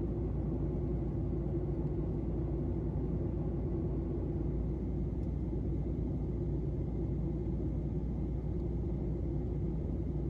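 Steady low rumble of an airliner's cabin noise, even and unbroken.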